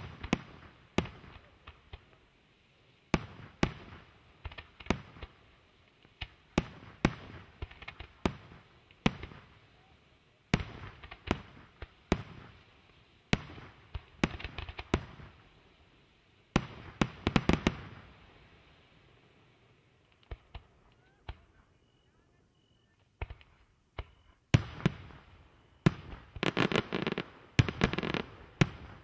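Aerial firework shells bursting in a series of sharp bangs, each trailing off in echo. After a short lull past the middle with only faint crackles, a rapid dense volley of bangs and crackling builds near the end.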